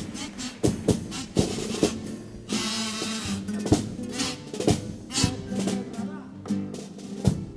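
A Cádiz carnival chirigota band plays an instrumental interlude between sung verses. A bass drum (bombo) and snare drum (caja) beat out a lively rhythm with many sharp strokes over steady pitched chords, most likely the group's guitars.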